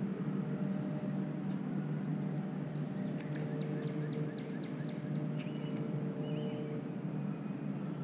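Steady low motor hum with a constant pitch. Short high bird chirps come in about three seconds in and recur for a few seconds.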